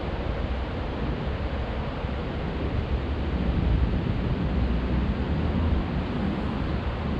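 Steady wind noise on the microphone: a low rumble with an even hiss above it.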